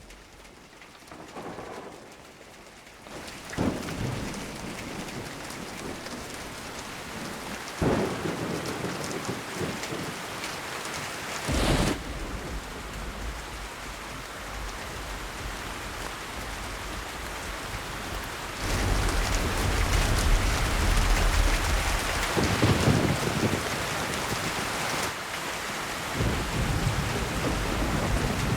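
Thunderstorm: steady heavy rain with sharp thunderclaps, three in the first half, then a long, deep rolling rumble of thunder.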